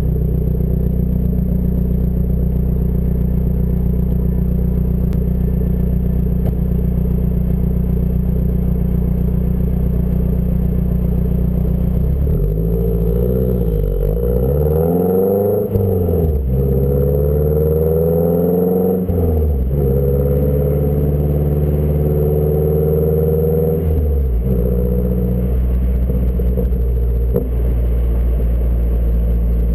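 Mazdaspeed 3's turbocharged four-cylinder running through an aftermarket exhaust with a CP-E downpipe and high-flow cat: steady idle, then three quick throttle blips about twelve seconds in, a rev held at higher rpm for about four seconds, and a drop back to idle.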